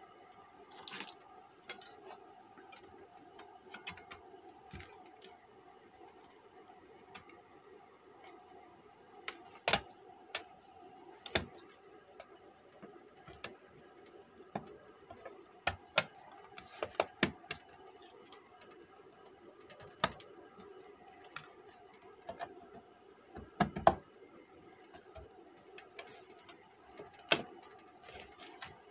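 Scattered sharp clicks and light knocks of a car stereo's sheet-metal casing being handled and fitted back together, over a steady faint hum.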